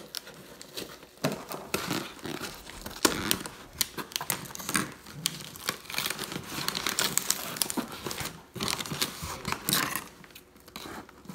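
Duct tape and plastic being pulled and torn off a cardboard shipping box: irregular crinkling and crackling with short ripping stretches and many small clicks.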